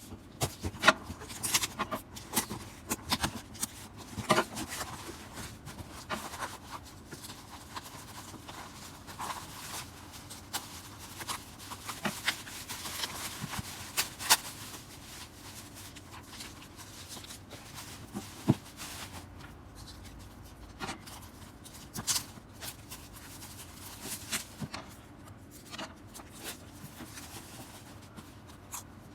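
Hands handling and opening an album's packaging: paper and card rustling, with scattered sharp taps and clicks, busiest in the first half.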